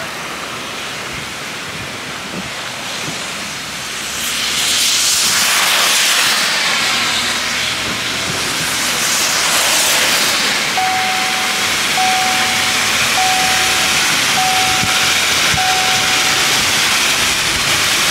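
Hurricane wind gusting and rain hissing in through the open side window of a moving truck, with wet-tyre rush from a passing car. The rush swells about four seconds in and again near ten seconds. Five short, even beeps sound a little over a second apart in the second half.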